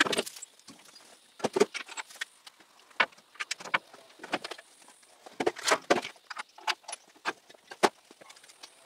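Irregular, sharp clinks and knocks of metal tools and parts being handled on an old car body.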